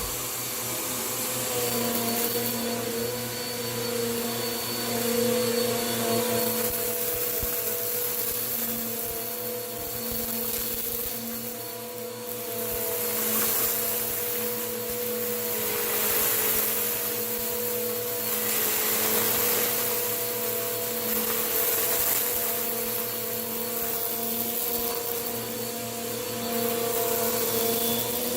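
Vacuum cleaner running, its motor humming at a steady pitch while it sucks up crunchy dirt. A hiss of air and grit swells and fades every few seconds as the vacuum is pushed back and forth.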